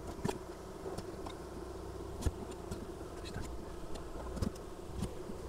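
Honeybee colony humming steadily in a wooden hive, with a few light wooden knocks and clicks as the hive's frames and boards are handled while the storey is being closed.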